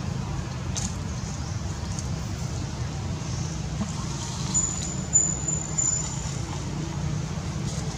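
Steady low rumble of an engine running nearby, with a thin high whine that lasts under two seconds about halfway through.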